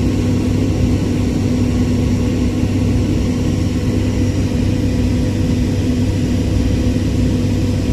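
Airliner cabin noise in flight: a steady engine and airflow drone with a constant low hum, unchanging throughout.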